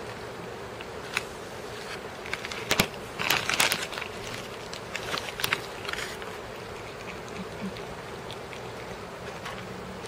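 Cat crunching freeze-dried chicken treats, in crackly bursts of clicks that are loudest about three to four seconds in and again near five seconds, over a steady buzzing hum.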